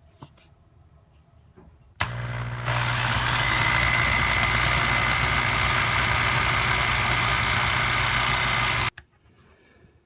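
Electric drill running steadily with a constant whine, drilling out the rivet posts that hold a die-cast toy car's base to its body. It starts about two seconds in and stops abruptly near the end.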